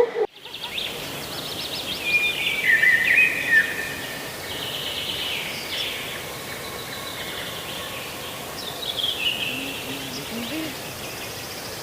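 Birds chirping and singing in repeated short whistled phrases over a steady outdoor noise bed.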